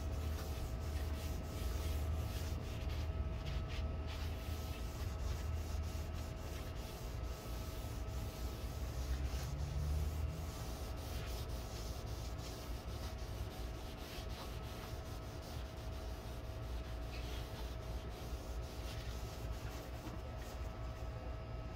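Hand rubbing over the surface of a wooden shelf in uneven scrubbing strokes, over a faint steady hum.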